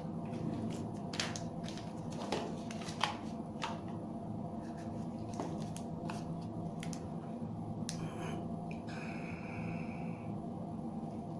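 Clicks and taps of a Samsung Galaxy M30s smartphone being handled and its power button pressed, then, about eight seconds in, a short electronic tone held for about a second and a half as the phone powers on. A steady low hum runs underneath.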